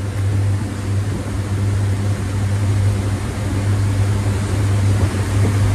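The 2006 Meridian 341's twin inboard engines running hard, near wide-open throttle at about 4,200 to 4,300 RPM, a steady low drone with an even rushing noise over it.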